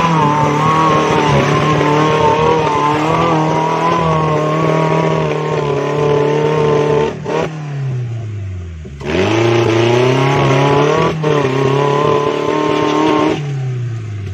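Extreme-class tubular off-road buggy's engine held at high revs under load as it climbs a steep, muddy slope. About seven seconds in the revs drop sharply and fall away for a second or so before climbing back. There is another brief dip a couple of seconds later, and the revs fall off near the end.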